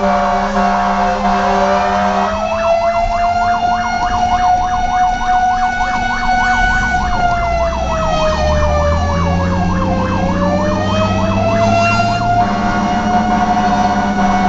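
Fire engine sirens while responding to a fire call: a slow wail that falls and rises, with a fast yelping siren layered on top from about two seconds in until about twelve seconds. The truck's engine rumbles underneath, louder in the second half.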